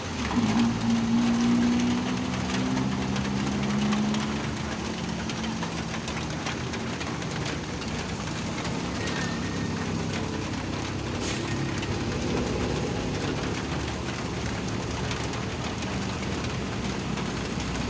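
A motor vehicle's engine labouring, its pitch rising a little over the first few seconds and then holding steady, under the steady hiss of heavy rain.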